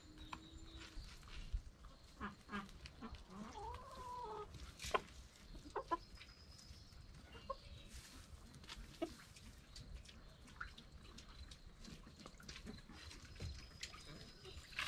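A flock of backyard hens clucking softly while they feed, with scattered short calls and one longer rising-and-falling call about four seconds in.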